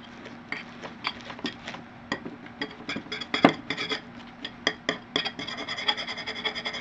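Metal spoon scraping and clicking around the inside of a metal mixing bowl while stirring slime. Near the end the scraping sets the bowl ringing in a steady high squeal.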